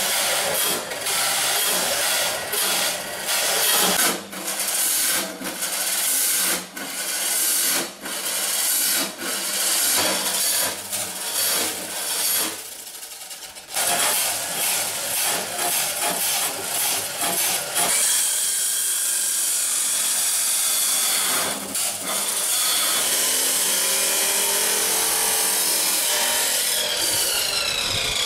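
Angle grinders cutting through seized motorcycle and car exhaust pipes: harsh grinding on metal that starts and stops many times, then runs steadily. Near the end a grinder's whine falls in pitch as it winds down.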